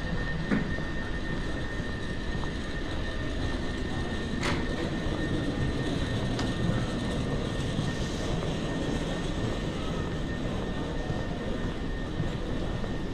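Airport concourse ambience: a steady low rumble and hiss with a faint, thin high tone running through it, and a sharp click about four and a half seconds in.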